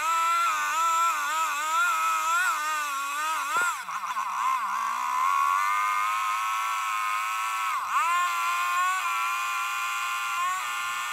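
Husqvarna 455 chainsaw on a chainsaw mill attachment, its engine running under load as it rips along a log. The pitch wavers and dips sharply twice as the chain bogs in the cut, then recovers.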